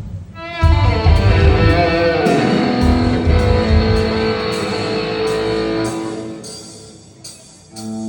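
Band playing at a sound check: a guitar chord is struck about half a second in, with heavy low bass hits underneath for the first few seconds. The chord then rings out and fades, and new guitar notes start near the end.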